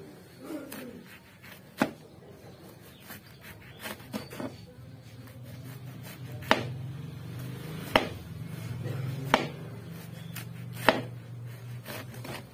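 Kitchen knife chopping banana heart on a cutting board: single sharp chops every second or two. A low steady hum sits underneath from about halfway through.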